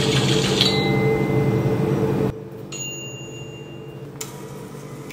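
A loud, steady electric hum that cuts off suddenly a little over two seconds in, leaving a quieter hum with thin, high, ringing electronic tones like a soft ding.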